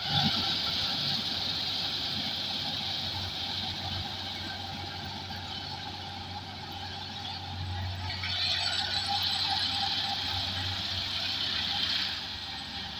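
Kubota tracked rice combine harvester running as it cuts and threshes rice: a steady diesel engine and machinery drone. The drone swells about two-thirds of the way in, then drops off near the end.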